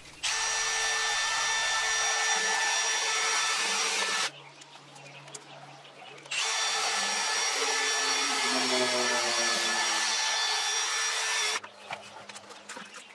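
Cordless drill spinning a rotary chimney brush on flexible rods inside a stainless-steel chimney pipe, scrubbing out soot. It comes as two steady runs of motor whine and brush scrubbing, about four and five seconds long, with a short pause between.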